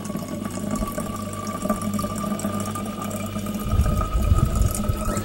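Cold tap water running into a plastic malt extract bottle, filling it, with a faint tone that rises slowly as the bottle fills. There are some low thuds about four seconds in.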